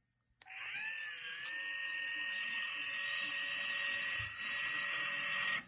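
Battery-operated electric can opener's small motor whining as it runs. It starts about half a second in with a brief rise in pitch, holds a steady high whine, and cuts off abruptly just before the end.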